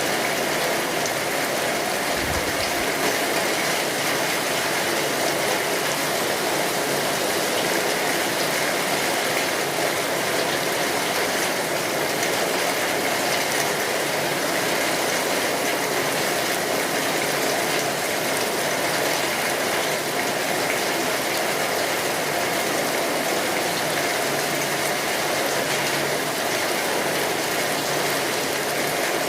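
Steady rain falling on a tin roof, an even patter that doesn't change, with the crackle of a wood fire mixed in.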